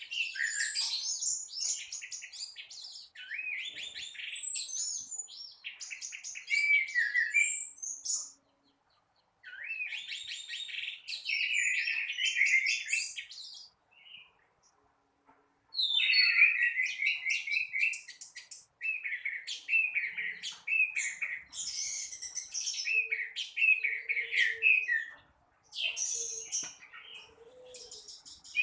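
Orange-headed thrush (anis merah) singing in long bouts of rapid, high, chattering phrases. There are short pauses about eight seconds in and again about fourteen seconds in.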